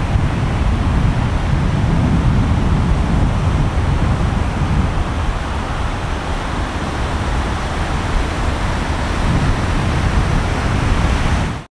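Ocean surf: a steady rushing noise, heaviest in the low end, that cuts off suddenly at the end.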